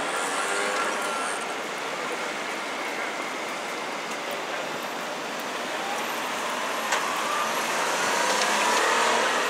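City street traffic at an intersection: cars and vans running past in a steady hum of engines and tyres. One vehicle passing close grows louder near the end, and there is a single sharp click about two thirds of the way in.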